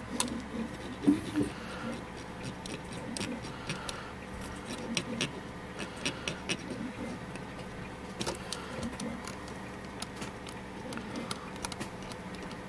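Irregular light clicks, taps and scraping from handwork on the bare metal mechanism of a Chinon FZ-357 floppy drive: a cotton swab rubbing off old grease and fingers working the head carriage. The sharpest click comes about a second in.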